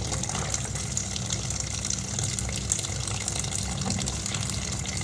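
Steady rush of running water with a low, constant hum underneath.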